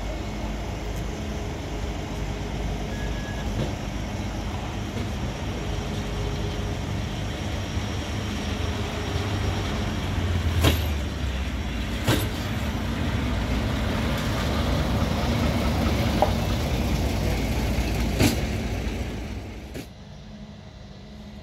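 Diesel engine of a WM-15A track maintenance motor car running steadily as it shunts slowly past, growing louder as it nears. Four sharp clacks come over the second half, and the rumble drops away near the end.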